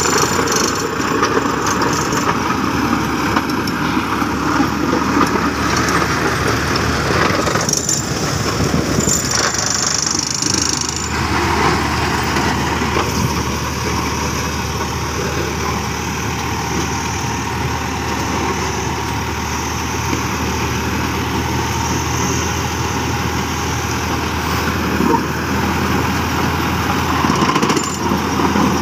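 Motor grader's diesel engine running steadily while the machine grades, with soil and gravel scraping under its blade.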